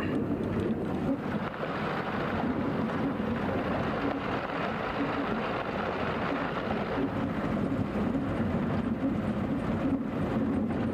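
Steady rumble of a vehicle's engine and tyres on a dirt road, heard from inside the cab.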